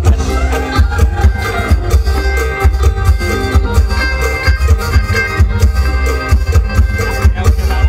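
Live band playing Isan mor lam music, with a drum kit keeping a steady beat over a strong bass.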